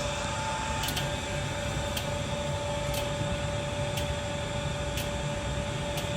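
Steady hum of running machinery with two held tones, and a faint tick about once a second.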